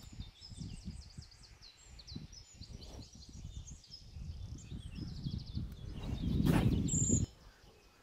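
Small birds chirping and singing in quick runs of high notes over a low rumbling noise. The rumble swells to its loudest about six seconds in and drops off suddenly about a second later.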